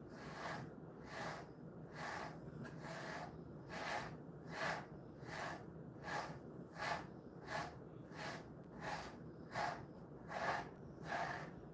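Brush strokes through a Jindo-mix dog's coat: a pet grooming brush drawn over the chest and belly fur in an even rhythm, about one and a half strokes a second.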